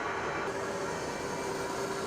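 Jet engine running steadily: a continuous rushing noise with a faint held whine. The hiss turns brighter about half a second in.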